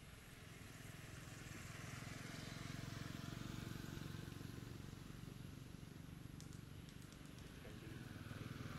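A motor vehicle's engine running, growing louder about three seconds in, easing off, then louder again near the end.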